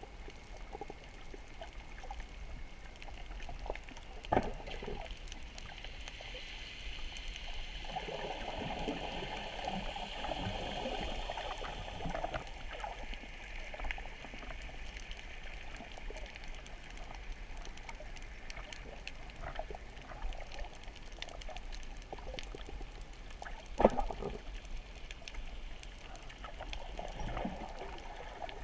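Underwater sound on a coral reef as picked up by a submerged camera: a steady rush of moving water speckled with fine crackling clicks, thickening into a louder rushing for a few seconds in the first half. Two sharp knocks stand out, one about four seconds in and a louder one about three quarters of the way through.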